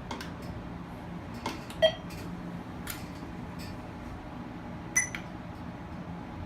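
Steady hum of a car cabin, with a few short clicks and two brief electronic chirps, about two seconds and five seconds in.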